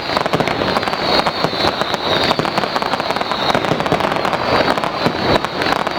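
Fireworks display with a dense, rapid crackle of many small bangs running without pause, and a high wavering whistle above it.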